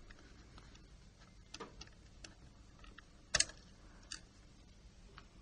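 Faint, scattered clicks and taps of small repair tools on a Nokia phone's internal parts during disassembly, with one sharper click about three and a half seconds in.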